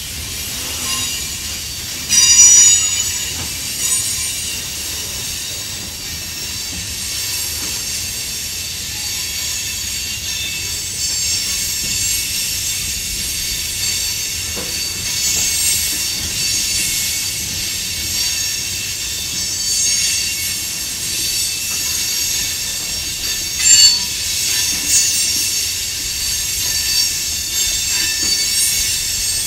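Steel wheels of covered hopper cars squealing against the rail as a freight train rolls through a curve: a steady, high-pitched squeal of several tones at once, flaring much louder about two seconds in and again with about six seconds left.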